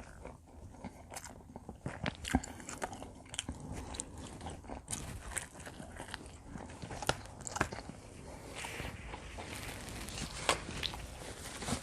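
Close-miked chewing and biting of combination pizza: irregular crunches of the crust and wet mouth clicks.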